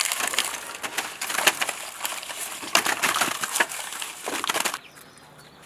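Bitter bamboo shoot scraps rustling and clattering as they are shaken out of a woven bamboo basket into a wooden hutch, a dense crackle full of sharp clicks that stops abruptly near the end.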